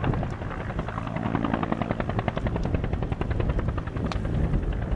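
Helicopter rotor beating in a fast, even rhythm over a low rumble, the beat clearest in the first half, with a couple of sharp pops.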